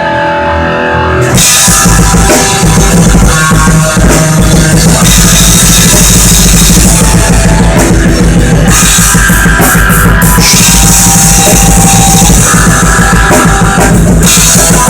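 Instrumental rock rehearsal of a drum kit with guitar, played loud, with no bass or vocals. After a short gap of only held guitar notes, the drums come back in about a second in and keep a steady beat under the guitar.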